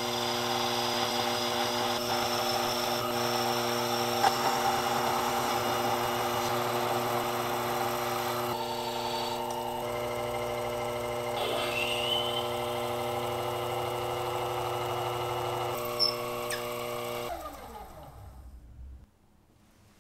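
Small bench lathe running with a steady motor whine while a carbide tool turns a brass rod, then a twist drill in the tailstock chuck bores into its end. About 17 seconds in the motor is switched off and winds down in pitch to a stop.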